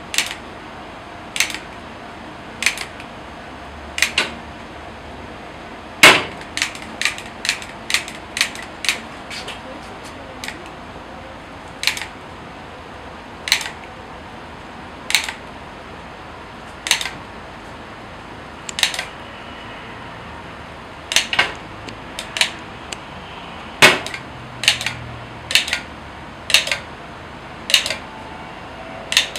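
Hand-held stainless batter dispenser clicking as its valve is snapped open and shut to drop batter into taiyaki moulds. Sharp clicks come every second or two, with quicker runs of them about six seconds in and again after about twenty seconds, over a steady background noise.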